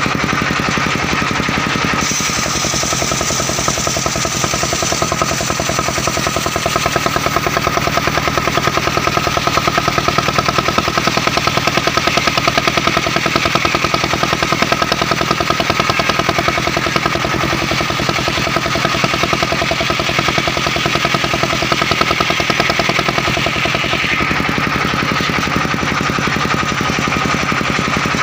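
Engine of a mobile circular sawmill running steadily with a rapid, even pulsing. From about two seconds in until a few seconds before the end, a brighter, hissier cutting sound joins it, as the blade saws through a mahogany log.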